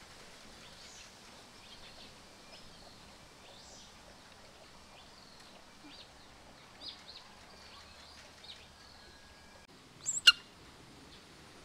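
Small birds chirping in the background, many short high calls over a faint steady outdoor hiss. About ten seconds in, a single brief, sharp, high-pitched sound, much louder than the birds.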